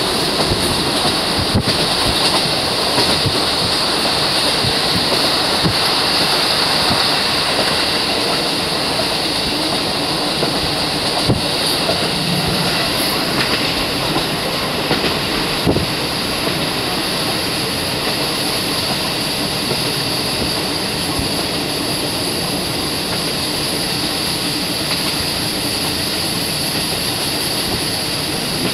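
Running noise of a four-car KiHa 40/KiHa 54 diesel railcar train heard from inside the car: a steady rumble and hiss of wheels on rail, with a few sharp clicks from the track.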